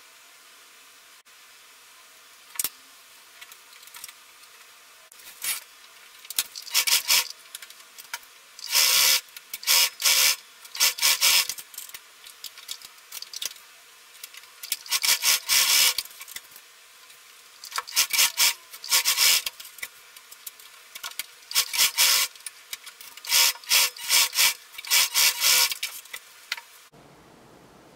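Singer household sewing machine stitching in short runs of a second or so, stopping and starting about a dozen times as short seams are sewn.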